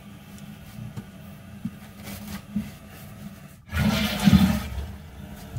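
Toilet being flushed. A few faint rustles of paper towels come first, then a sudden rush of water about two-thirds of the way in, loudest for about a second before dying down. The flush is a test for a leak at the toilet's base.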